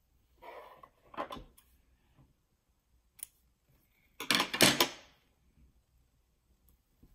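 Handling noises of metal surgical instruments and a suture pad on a wooden tabletop: a few rustles and clicks, the loudest a quick clatter of several clicks about four and a half seconds in.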